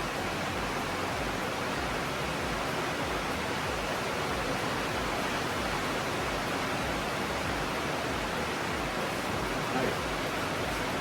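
Steady hiss of rain drumming on a tin roof.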